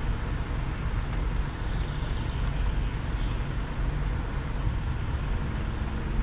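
Wind rumbling on a compact camera's microphone, an uneven low buffeting.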